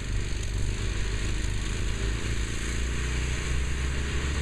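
Engine of a Sears Custom 7 garden tractor converted into an off-road mud mower, running steadily with a low rumble.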